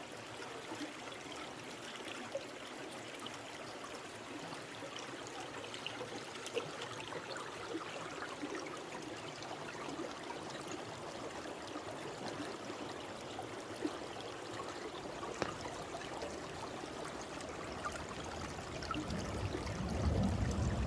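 Water running in a small stream, a steady trickle with scattered small ticks and splashes; a low rumble rises near the end.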